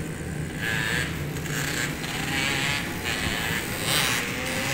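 Road traffic: cars passing one after another, over a steady low hum.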